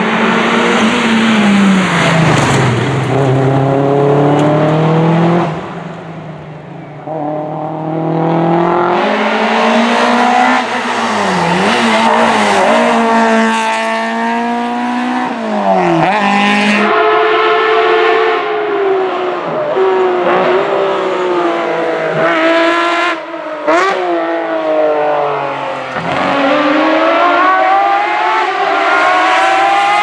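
Historic rally cars at full throttle on a tarmac stage, heard one after another: a Toyota Celica GT-Four, then a small hatchback, then a Lancia Stratos. Each engine revs up through the gears, its pitch climbing and then dropping sharply at every gear change and lift-off.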